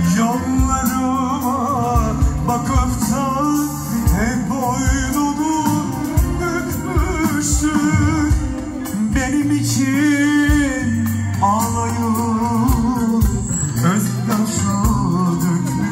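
Live band music with a man singing into a microphone through loudspeakers: a wavering melody with vibrato over a steady bass and drum beat. A new sung phrase starts midway.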